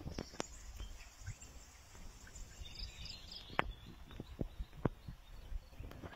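An elephant shifting in a mud wallow: a few sharp, scattered slaps and splashes of mud and water over a low outdoor rumble, with a brief run of faint bird chirps about halfway through.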